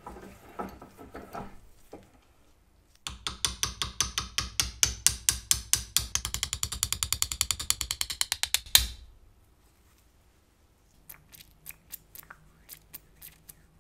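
Ball-peen hammer tapping rapidly on a small steel rod held in a vise, a quick run of ringing metal-on-metal blows, about five a second and quickening, ending in one harder blow. Scattered light metallic ticks follow near the end.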